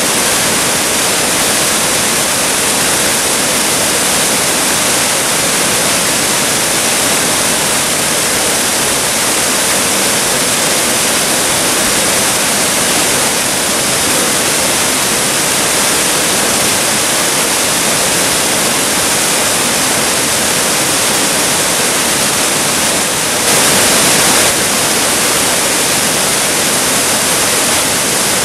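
Waterfall plunging into a pool: a steady, dense rush of falling water, briefly a little louder near the end.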